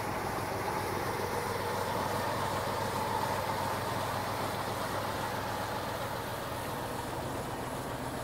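1970 Ford F-250 pickup's engine idling steadily, an even low hum with some hiss over it.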